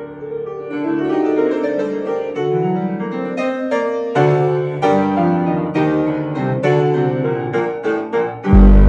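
Piano music: notes and chords struck in quick succession, each ringing and decaying. Near the end a sudden loud deep tone comes in.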